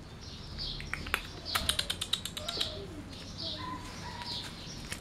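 Small birds chirping over and over, short falling chirps about twice a second. A quick run of sharp clicks comes about a second and a half in.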